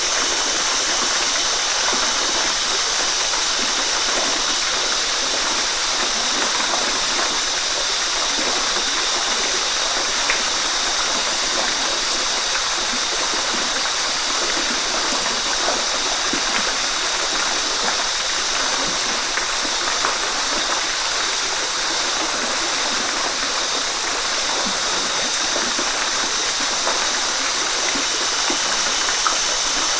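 Waterfall: falling water splashing and rushing in a steady, even roar of white noise that doesn't change.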